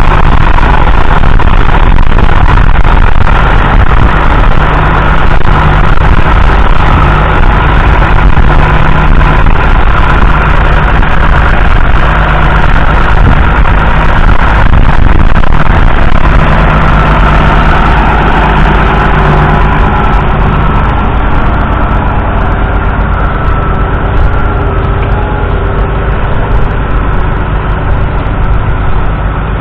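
1997 Massey Ferguson 6170's 6.0-litre six-cylinder diesel engine running steadily under load, pulling a two-furrow reversible plough through stubble. It is loud throughout and a little quieter after about twenty seconds.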